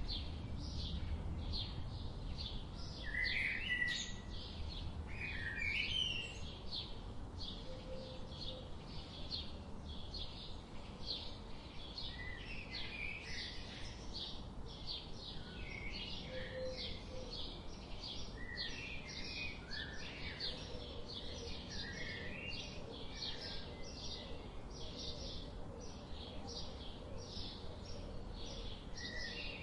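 Small songbirds chirping continuously: a steady run of short high chirps about two a second, mixed with occasional lower twittering phrases.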